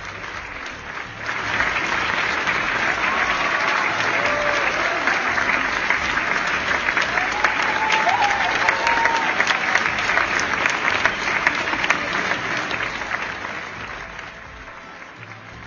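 Theatre audience applauding: the clapping starts about a second in, holds steady, and dies away near the end.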